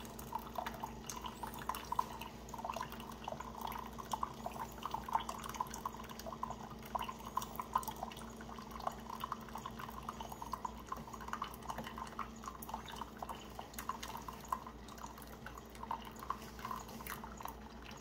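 Keurig single-serve coffee maker dispensing a thin stream of water into a ceramic mug, trickling and dripping irregularly, over a steady low hum. This is the fresh-water flush stage of the descaling cycle.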